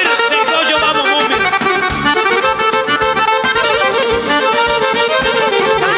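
Accordion playing a dance tune over a steady beat, with dense, full chords throughout.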